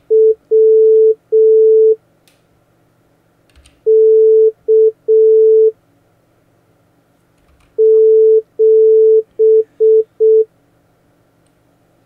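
Morse code played as a steady beeping tone by a Morse-code trainer web page at slow speed: three characters a couple of seconds apart, dot-dash-dash (W), dash-dot-dash (K), then dash-dash-dot-dot-dot (the digit 7).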